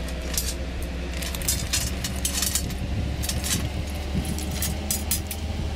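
Small metal bolts and washers clinking and rattling as they are handled and fitted, many quick clicks, over a steady low hum.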